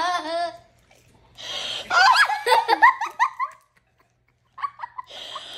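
Children laughing hard in several bursts, broken by a pause of about a second near the end.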